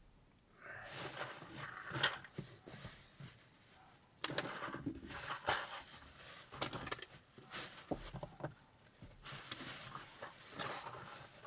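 Packaging being handled: rustling that comes and goes, with scattered light clicks and taps.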